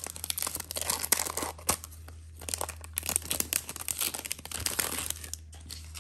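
Foil trading-card pack wrapper crinkling and crackling as it is peeled open and the cards are slid out, a dense run of sharp crackles that dies away about five seconds in.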